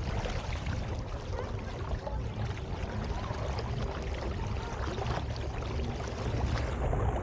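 Water splashing and rushing along the hull of a moving kayak, with a child's hand dragging through the water beside it and throwing up spray. A steady low rumble of wind on the microphone runs underneath.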